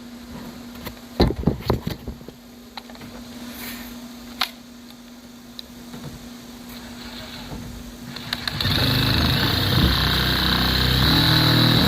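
A few scattered clicks and knocks of handling, then about eight and a half seconds in a power drill with a double-cut shear attachment starts up suddenly and runs steadily, with a high whine, on furnace sheet metal.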